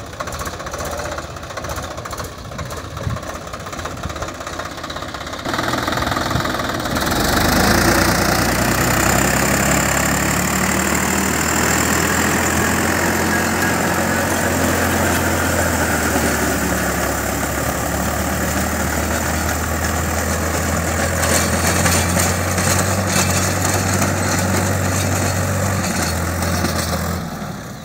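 Swaraj 744 XT tractor's three-cylinder diesel engine running steadily under load as it pulls a rotavator through the soil. It gets louder about six seconds in, with a thin high whine over the engine for most of the rest.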